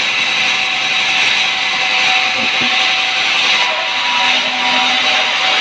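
Sawmill saw cutting through wood: a loud, steady, high-pitched hissing whine that holds at one level throughout.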